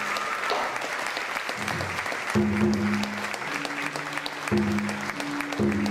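Audience applauding steadily at a water puppet show's curtain call. Music with held notes comes in about two seconds in and plays over the clapping.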